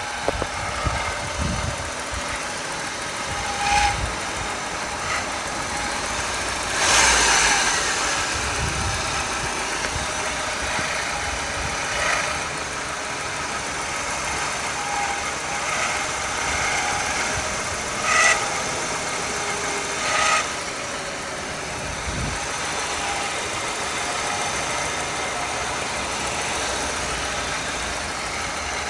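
1994 Honda Integra engine running steadily, with an extraneous noise that the owner cannot identify. Sharp clicks or knocks with a short ringing tail stand out at irregular intervals, about five in all, a few seconds apart.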